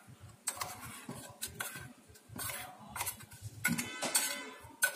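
A spoon scraping and tapping against a steel mixer-grinder jar, knocking coarsely ground sweetcorn paste out into a glass bowl, in a string of irregular clicks and scrapes.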